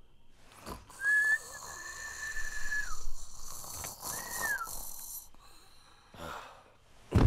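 A person's high, thin breathy whistle, held for about two seconds and tailing down at the end, then a shorter whistle that rises and falls, over a faint hiss of breath. A sudden loud noise comes near the end.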